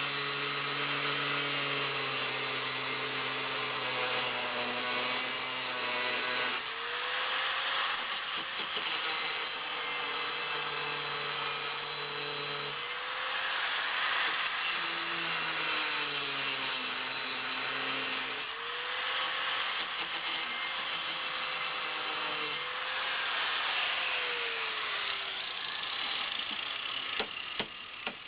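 Angle grinder's cutting wheel grinding into the hardened steel of a Kryptonite U-lock, a steady hiss of grinding over the motor's whine. The motor's pitch shifts every few seconds as the wheel is worked around the cut. A quick run of sharp clicks comes near the end.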